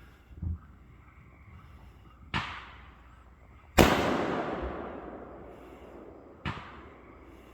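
Fireworks going off: a low distant thump just after the start, then three sharp bangs. The loudest comes about halfway through and dies away slowly over a couple of seconds.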